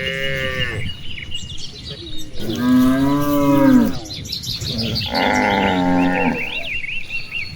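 Cattle mooing: three calls, a short one at the start, a longer and loudest one about two and a half seconds in, and another about five seconds in. Birds chirp between the calls.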